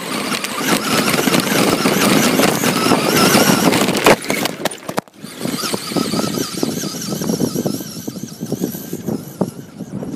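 Electric RC short-course truck driving hard: the stock brushed motor and drivetrain whine, the pitch wavering up and down with the throttle, over a rough, noisy rumble. One sharp knock about four seconds in, and the sound drops out briefly just after five seconds.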